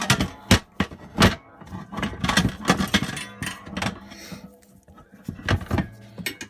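Irregular metallic clanks and knocks as parts of a wood stove's door housing are worked and pried at, a few sharp strikes loudest among them.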